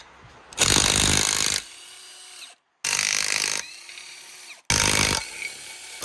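Cordless impact wrench hammering in three short bursts of about a second or less, each followed by the motor winding down with a fading whine. It is loosening the ATV engine's cylinder head bolts.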